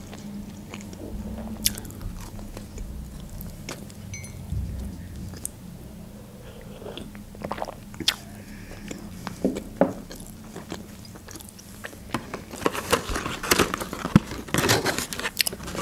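Close-up chewing of a mouthful of food, with wet mouth clicks and smacks. About thirteen seconds in, a cardboard KFC box is handled and opened, bringing a denser run of papery clicks and rustles.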